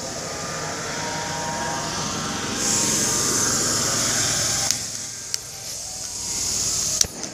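Isobutane-propane gas hissing from a BRS ultralight canister stove's burner that has not yet lit, with a few sharp clicks as a wand lighter is sparked at it.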